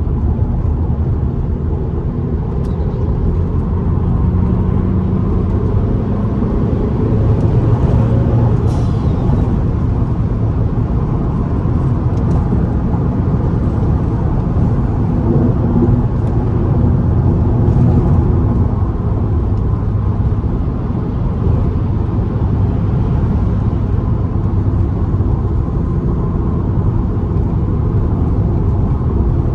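Car driving at speed: steady engine and road noise. The engine note rises and swells twice as the car accelerates.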